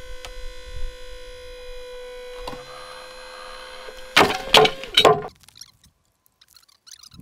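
A steady electric whine from the bolt pull-test rig's hydraulic pump, then about four seconds in three loud, sharp cracks in quick succession as the rig under load lets go, and the whine stops.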